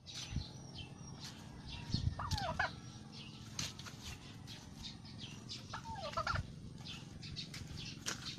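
Domestic tom turkey in strut display, giving two short calls, about two seconds in and again near six seconds, with scattered light ticks and rustles between them.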